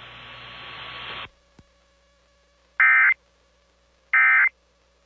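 Weather-radio hiss that cuts off about a second in, a faint click, then two short, loud electronic data bursts about a second and a half apart: the EAS/SAME digital end-of-message tones that close a NOAA Weather Radio alert.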